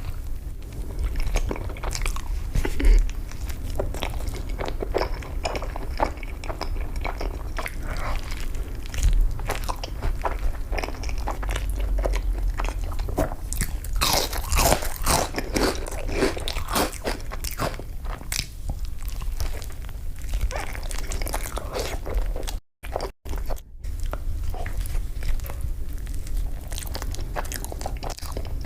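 A person eating fast food close to the microphone: crisp bites and crunching mixed with chewing, in irregular quick crackles. The sound cuts out completely three times in quick succession about three-quarters of the way through.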